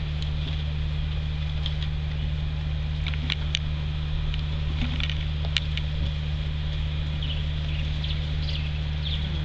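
A steady low hum, with a few sharp clicks around the middle and short faint high chirps near the end.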